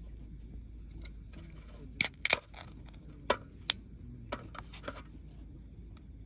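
A run of sharp clicks and knocks, like small objects being handled: a quick cluster of three or four about two seconds in, then about five single clicks over the next three seconds, over a steady low background hum.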